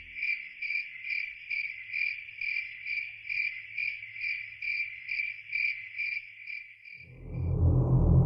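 Cricket chirping in an even rhythm, about two chirps a second. The chirping stops near the end and a loud low rumble comes in.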